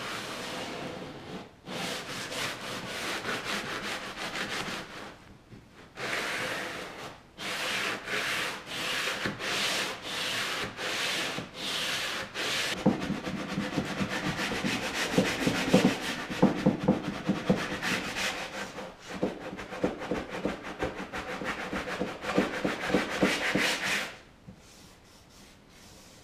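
Hand sanding of a wooden countertop edge with a sanding block: quick back-and-forth rubbing strokes with short pauses, faster and heavier from about halfway, stopping a couple of seconds before the end.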